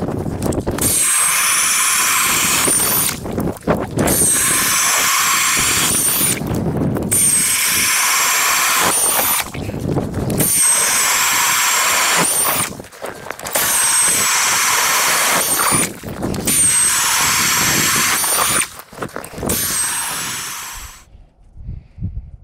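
Milwaukee FUEL cordless drill spinning a hand ice auger through lake ice. It runs in about seven bursts of roughly two seconds each, with short pauses between, and a high whine rides on top. It stops about 21 seconds in.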